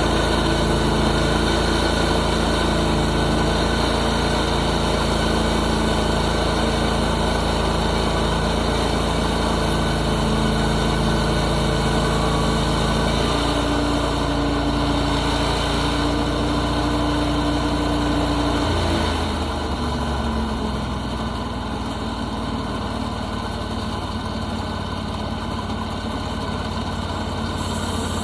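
Portable sawmill's engine running steadily. Its tone shifts about halfway through, then it drops to a lower, slightly quieter speed a few seconds later.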